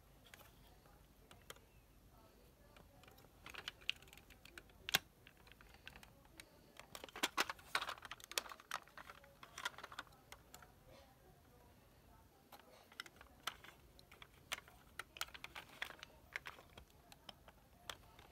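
Small hard clicks and taps from a toy McLaren model car being handled, its doors being shut and opened. They come in scattered clusters, busiest near the middle.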